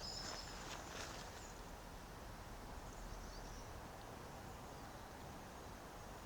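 Faint woodland ambience: a low steady background hum, a few soft rustles in the first second, and faint, high, short bird calls at the start and again about three seconds in.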